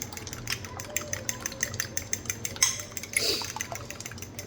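Seasoned egg yolks being beaten in a bowl with a utensil: quick repeated clicks of the utensil against the bowl over a wet sloshing, with a brief louder swish about three seconds in.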